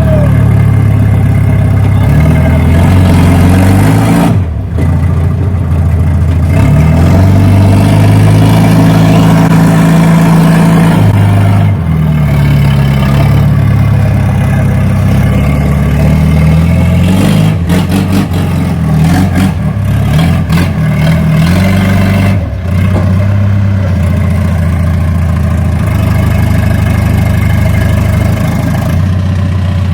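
Forklift engine running under a heavy load, its pitch rising and falling several times as it revs and eases off, with a few short dips and some clicking about two-thirds of the way through.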